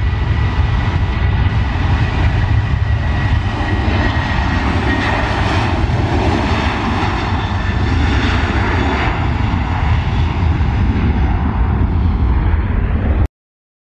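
Boeing 737's jet engines running at high power on the takeoff roll: a loud, steady rumble with a high whine that fades after the first few seconds. The sound cuts off abruptly near the end.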